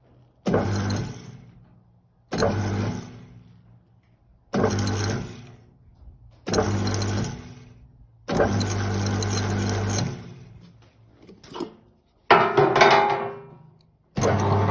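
Sirman TC 22 Colorado table-top meat grinder's electric motor, run empty in short bursts. It is switched on about every two seconds, hums steadily for a second or two, then winds down after being switched off. This happens about seven times, and the last run starts near the end and keeps going.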